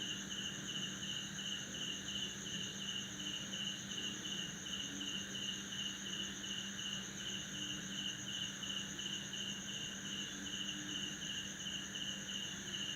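Crickets chirping at night after heavy rain: one sings in even pulses, about three a second, over the continuous high trill of others. A steady low hum runs underneath.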